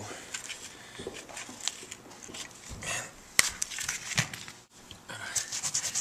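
Hands handling and taping a plastic MacBook MagSafe power adapter, with scattered crackles and taps. About five seconds in, a cloth starts rubbing quickly back and forth over the adapter.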